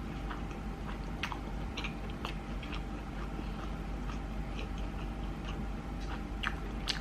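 Close-miked mouth sounds of a person chewing a sushi roll with an imitation crab stick filling: soft, irregular wet clicks and smacks, one a little louder near the end.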